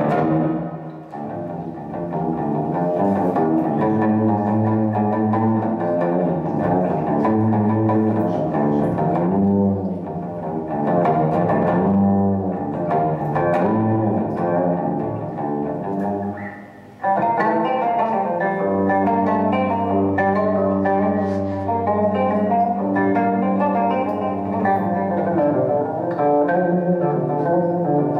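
Solo plucked string instrument, amplified: quick picked melodic lines over low held notes. The sound dips briefly about 16 seconds in, then comes back with a steady low drone under denser picking.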